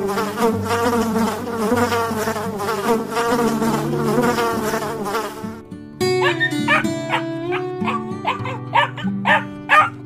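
Bees buzzing at flowers in a steady, wavering drone that stops just before six seconds in. Then a Siberian husky gives a string of short yips and whines over background music.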